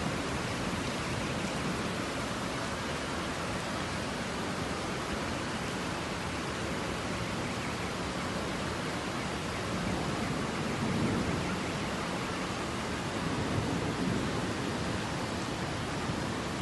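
Heavy rain falling in a steady, dense hiss, with a few low rumbling swells in the second half.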